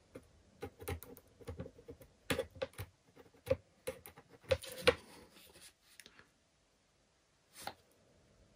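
Irregular light clicks and taps of a ruler and pen being handled and set against the wing while a line is drawn, stopping about six seconds in, with one more click near the end.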